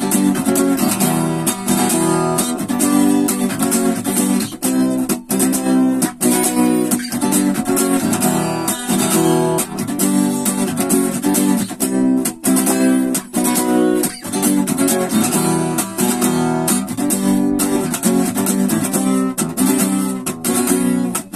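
Acoustic guitar strummed in a steady rhythm, chords ringing, without singing.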